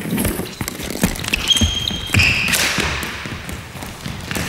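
Floorball play on an indoor court: a series of sharp knocks of the stick on the hollow plastic ball and the floor, with a few short high squeaks about halfway through.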